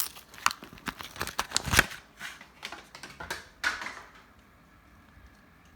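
Quick plastic clicks and crinkling as a smoke detector and its battery are handled, stopping about four seconds in.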